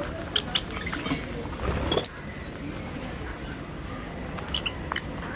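Lovebirds chirping in short, high squeaks, with one louder, sharper sound about two seconds in.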